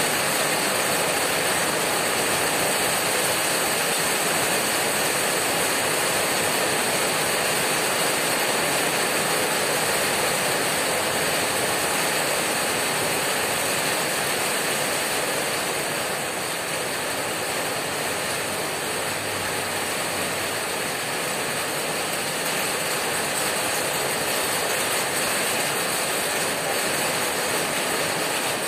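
Heavy rain hammering on a corrugated tin roof: a dense, steady patter of drops on the metal, easing slightly past the middle.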